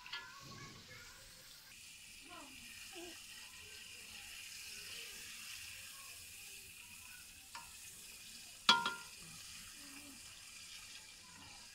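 Knife sawing horizontally through a large sesame-topped bun, a faint steady rasp of crust and crumb being cut, with a sharp click about nine seconds in.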